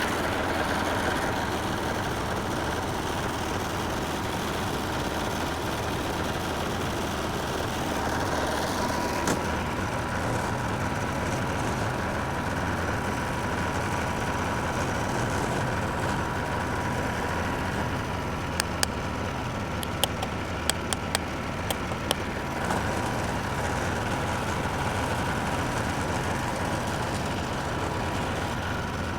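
Massey Ferguson 300 crawler dozer's engine idling steadily, with a handful of short sharp clicks about two-thirds of the way through.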